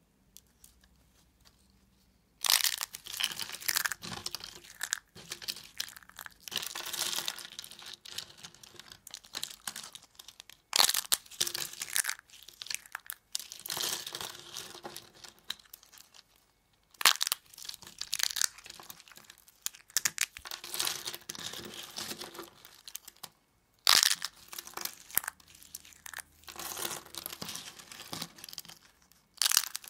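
Thin slabs of household laundry soap being snapped and crumbled by hand into brittle shards: dry crackling and crunching in bursts with a few short pauses, starting a couple of seconds in.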